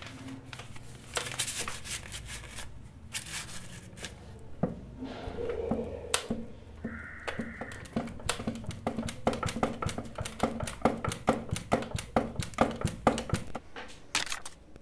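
A run of sharp clicks or ticks, irregular at first, then quickening into a fast regular ticking of about three or four a second that stops just before the end, over a low steady hum.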